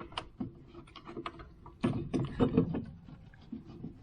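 Tools and metal parts being handled during a car repair: a string of scattered clicks and knocks, busiest and loudest around two seconds in.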